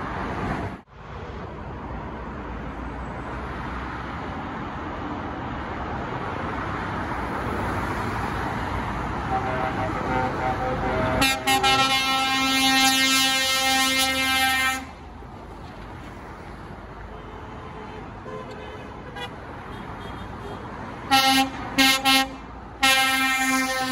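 An arriving lorry's engine and tyre noise builds up, then its air horn sounds one long blast of about three and a half seconds that cuts off sharply. After a quieter pause with a vehicle running, the horn gives three short toots and then another long blast.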